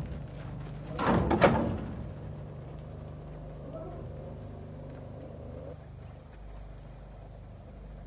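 Rams moving around in a pen of wooden boards and corrugated metal sheets: a short clatter of knocks about a second in, then a faint steady low hum.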